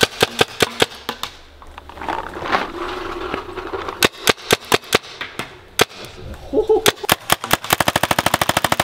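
Fully automatic paintball gun firing: scattered single shots and short strings at first, then a rapid, even full-auto burst near the end.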